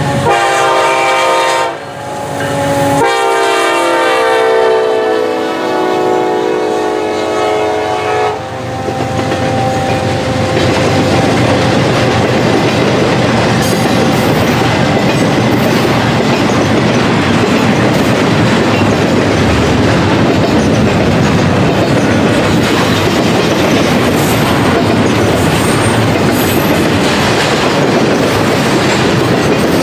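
Kansas City Southern freight locomotive's air horn sounding a multi-tone chord. It cuts off about two seconds in and blows again for about five seconds. Then the double-stack intermodal container cars roll past with a steady rumble and clatter of wheels on the rails.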